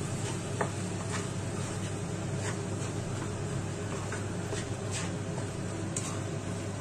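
A spatula stirring macaroni in a deep non-stick pan, with scattered scrapes and taps against the pan, over a steady low hum.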